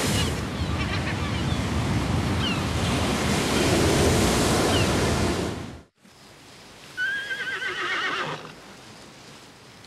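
Heavy surf breaking on rocks, with wind, cutting off about six seconds in; then a horse whinnies once, a wavering call lasting about a second and a half.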